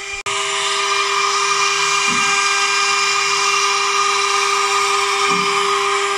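CNC wood router's 0.8 kW air-cooled spindle running at high speed with a steady whine, its conical ball-nose bit engraving lettering into a wooden board.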